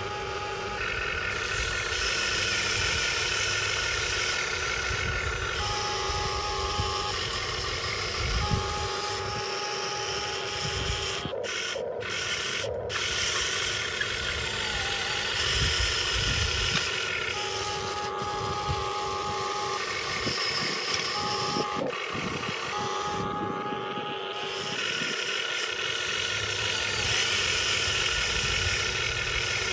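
Metal RC excavator's electric motors whining as the boom, arm and bucket move. The whine starts and stops every few seconds and changes pitch as different functions run, with irregular crunching of gravel under the bucket.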